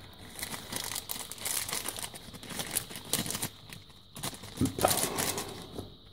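Small zip-lock plastic bag crinkling in the hands as it is opened and resin kit parts are taken out. The crinkling comes on and off and is loudest about three-quarters of the way through.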